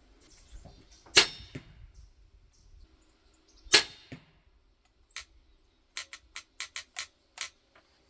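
Two crossbow shots about two and a half seconds apart, each a sharp loud snap of the string and limbs releasing a bolt. A run of fainter short ticks follows near the end.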